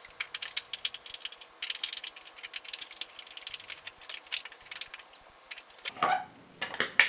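Quick, irregular small clicks and rattles of a screwdriver working screws out of a Henry Micro vacuum cleaner's plastic housing as the housing is pulled apart, with a dense run of clicks about two seconds in.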